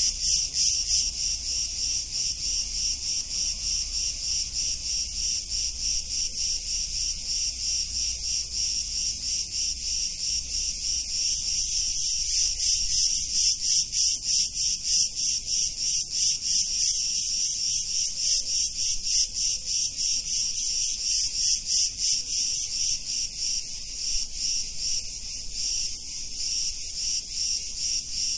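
A chorus of cicadas buzzing continuously: a high, rasping drone with a fast pulsing texture, swelling a little in the middle.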